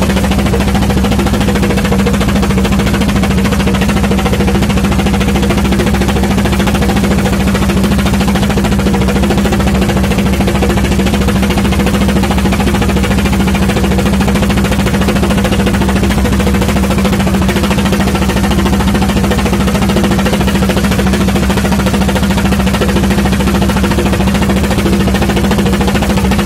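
Fishing boat's engine running steadily and loudly under way, a constant hum that does not change.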